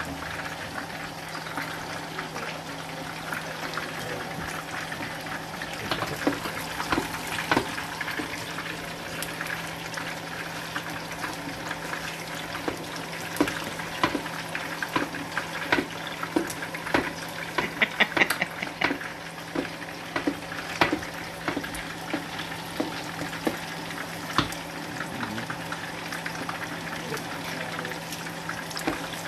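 Chicken leg quarter cooking in a shallow pool of hot oil and sauce in an electric skillet, bubbling and sizzling steadily. A metal spoon and ladle repeatedly clink and scrape against the pan while the chicken is basted, most busily in the middle stretch.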